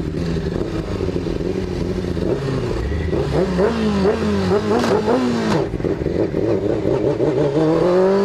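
Honda CBR600F4's inline-four engine, first running steadily, then revved in a series of quick up-and-down blips with two sharp clicks, then rising steadily in pitch near the end. The bike is being ridden with no working clutch, because its clutch lifter pin has snapped.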